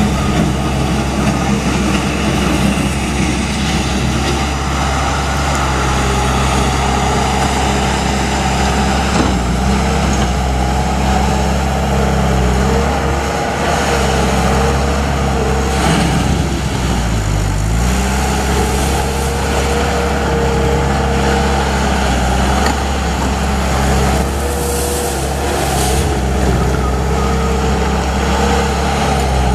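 Diesel engine of a 2007 Bobcat T250 compact track loader running steadily at working speed as the machine drives and lifts its bucket. About halfway through the engine pitch dips briefly and recovers, as it does when the engine is loaded.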